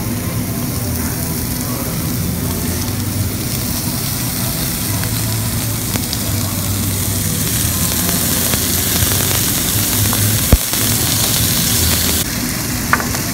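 Slices of beef sizzling on a tabletop barbecue grill, over a steady low hum. A single sharp knock comes about ten seconds in, and a smaller click near the end.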